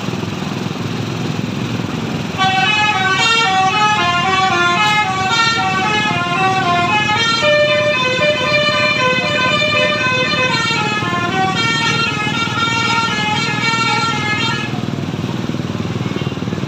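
Bus's musical horn playing a tune of short stepping notes, several pitches at once, starting about two seconds in and stopping a couple of seconds before the end, over the steady noise of a running engine.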